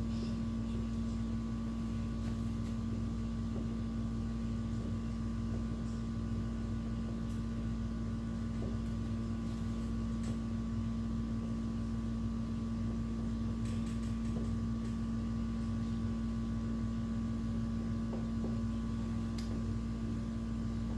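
Steady room hum with a constant low drone, with a few faint taps and squeaks of a marker writing on a whiteboard.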